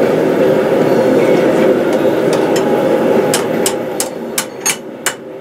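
A steady roar from the forge fades out a little past halfway, and near the end a hammer strikes hot steel on the anvil six times, about three blows a second, while a scroll is worked in flat bar stock.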